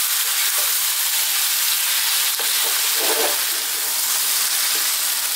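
Potato cubes, spinach and tomato frying over high heat in a pan, a steady sizzling hiss, while a spatula stirs and turns them with occasional short scrapes.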